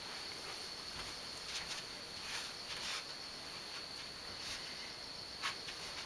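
Quiet room tone: a steady hiss with a thin, high, constant whine, broken by a few faint soft rustles of a person moving.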